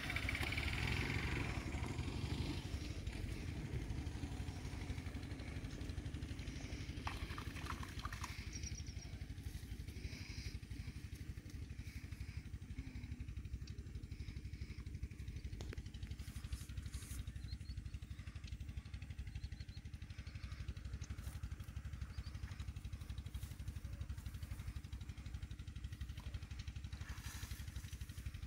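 A steady low motor drone, with a few faint clicks.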